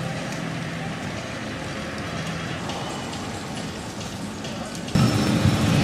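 Street noise with a low engine hum from traffic; about five seconds in it turns louder and fuller.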